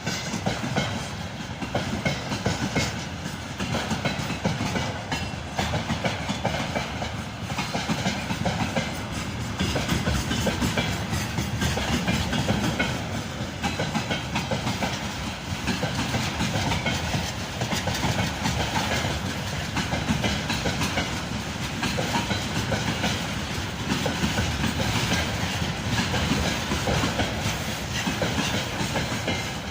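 Train wheels clattering over the rail joints, a continuous clickety-clack of knocks over a steady running rumble.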